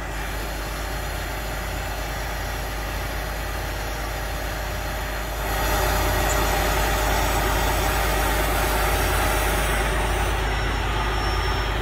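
Heavy diesel truck engine idling steadily, growing louder about halfway through.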